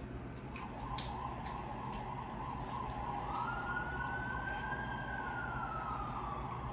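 A siren wailing, its tone slowly rising and then falling in pitch, with a few faint clicks in the first second or so.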